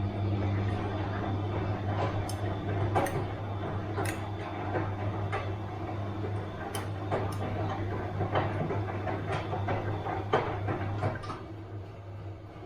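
Bosch washing machine running: a steady low hum with irregular sharp clicks and knocks from the turning drum, getting a little quieter near the end.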